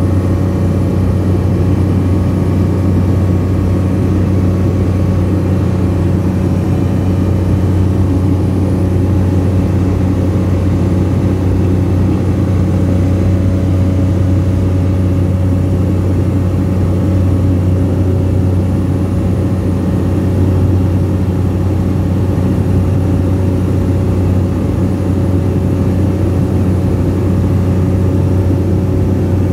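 Engine and propeller of a small high-wing aircraft in flight, heard inside the cabin: a loud, steady low drone that does not change in pitch.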